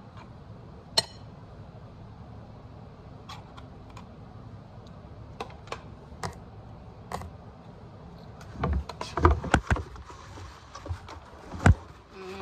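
Kitchen clatter while breakfast is plated: scattered clinks and knocks of dishes and utensils, with a cluster of heavier knocks about nine seconds in and one sharp knock near the end.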